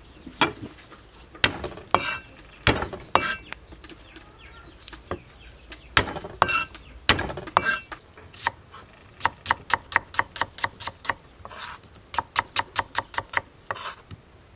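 Kitchen knife striking a wooden chopping board: scattered knocks, some with a short metallic ring from the blade, then a steady run of chopping strokes about three to four a second from a little past the middle.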